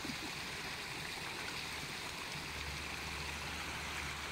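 Water flowing steadily over a bamboo-slat fish trap, a constant even rush.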